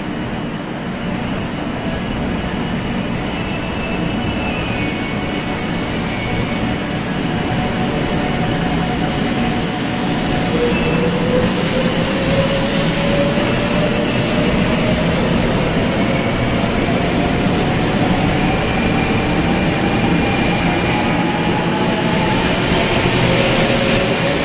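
500 series Shinkansen pulling out of the station: the rolling rumble and rush of the cars passing grows steadily louder. From about ten seconds in, a whine rises slowly in pitch as the train gathers speed.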